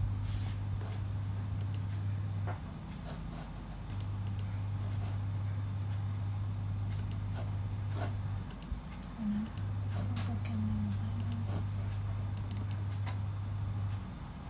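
Scattered light clicks and taps from a laptop's touchpad and keyboard, over a steady low hum that drops out briefly twice.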